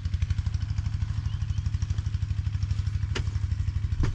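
A small engine running steadily, with an even, rapid pulse of about ten beats a second, and a sharp click about three seconds in.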